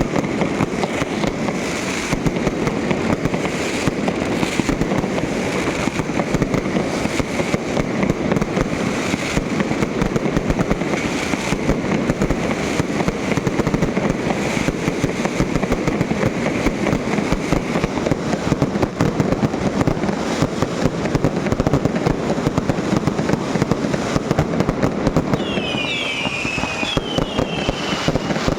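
Fireworks going off in a dense, continuous crackle of rapid bangs. Near the end a few whistling fireworks sound, each pitch falling.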